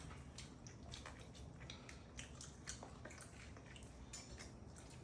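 Faint chewing of a sandwich: soft, wet mouth clicks and squishes at an irregular pace.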